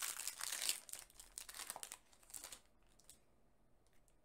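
Foil trading-card booster pack wrapper crinkling as it is torn open, for about two and a half seconds, then only faint rustles.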